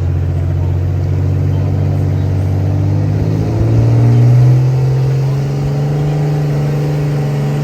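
2011 Ram diesel pickup engine running hard at high revs while pulling the sled. The pitch climbs a little about halfway through and is loudest just after, then holds steady before dropping away right at the end.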